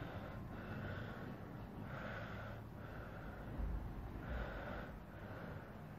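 Faint breathing near the microphone over low room noise, soft hissing breaths coming and going several times.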